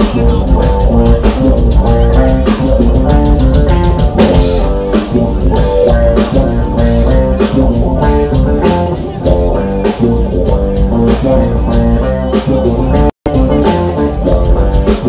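Live instrumental jazz-rock band playing: electric bass, drum kit and keyboard. The sound cuts out for an instant near the end.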